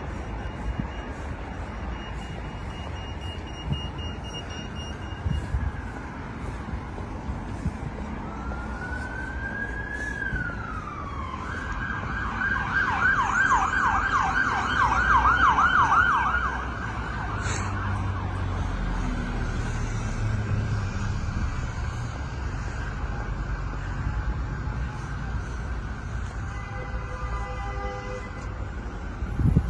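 Emergency vehicle siren sounding in the street, a slow wail rising and falling, then switching to a fast yelp that is loudest about halfway through before it fades. Traffic rumbles steadily underneath.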